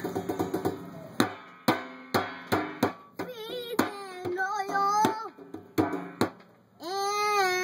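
A child slapping the top of a small metal drum with his hands, about nine uneven hits, and singing a wavering tune in a high voice over the middle hits. About seven seconds in, after a brief hush, he starts a long held note.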